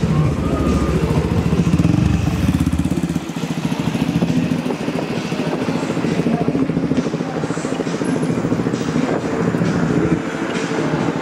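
A vehicle engine running with a low, pulsing exhaust rumble, strongest for the first three seconds and then easing off, over street noise and faint voices.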